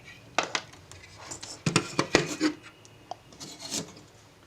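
Computer parts being handled on a work surface: a series of sharp clicks and knocks, with rubbing and scraping as parts are slid and set down.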